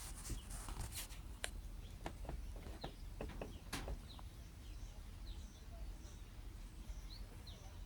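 Outdoor ambience of small birds giving short, falling chirps, repeating every half second or so from about halfway through. A handful of sharp clicks comes in the first half, over a steady low rumble.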